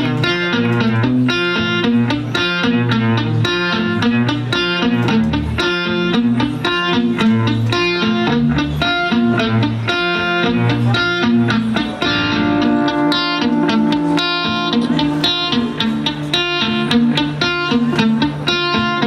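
Amplified electric guitar playing a quick, repeating picked figure; about twelve seconds in it shifts to longer ringing notes.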